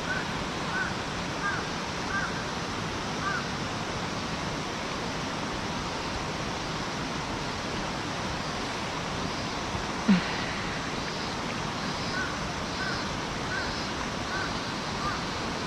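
Steady rushing water of a mountain stream. Faint short high chirps repeat every half second or so early on and again near the end, and a single knock sounds about ten seconds in.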